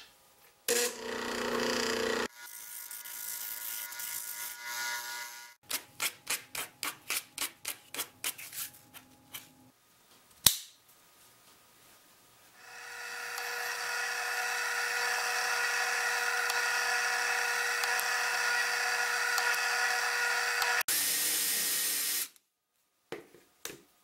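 Disc sander sanding the inside edges of a cut PVC pipe clip that fits a golf ball too tightly. There are short sanding passes, then a run of quick rubbing strokes at about four a second and a single sharp click. Last comes a longer steady run of the machine, about eight seconds, that builds up and stops abruptly.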